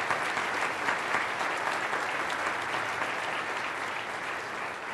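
Audience applauding steadily, easing slightly toward the end.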